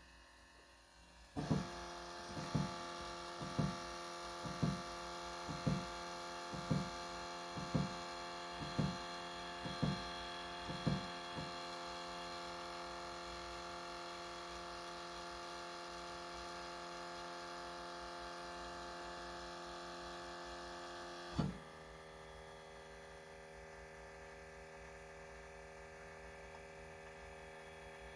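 A small electric motor or pump under a parked, switched-off 2019 Hyundai Ioniq plug-in hybrid starts up by itself with a steady whine. It ticks about once a second for the first ten seconds, then whines steadily until a louder tick, after which it settles to a quieter steady hum.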